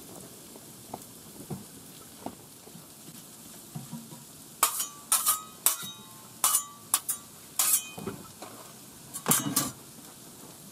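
Metal spatulas scraping and clacking on the steel top of a Blackstone griddle as potatoes, sausage and bacon are chopped and turned: a few light taps, then a run of about nine sharp metallic scrapes and clinks from about halfway in until near the end. The food sizzles faintly underneath.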